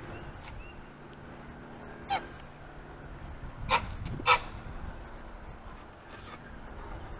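Domestic goose honking: three short, loud honks, the last two close together, over a low steady drone.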